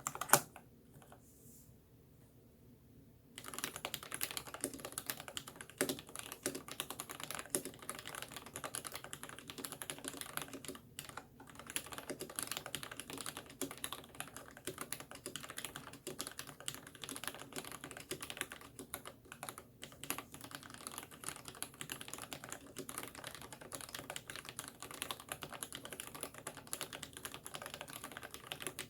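Typing on a Ninja87 Alu mechanical keyboard with lubed Gateron Black linear switches and PBT Cherry-profile keycaps. A few keystrokes come first, then a pause of about three seconds. After that comes steady, fast typing with a couple of brief breaks.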